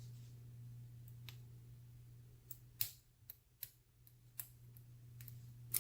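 Faint, separate metallic clicks and ticks of a lock pick working the pins of a small brass padlock under tension, about half a dozen irregularly spaced over a steady low hum. The picker takes it that he has overset a pin.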